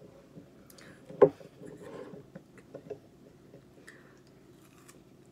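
A single sharp knock about a second in, as the aerosol whipped-cream can is set down on the table. It is followed by small clicks and soft wet biting and chewing of fresh fruit.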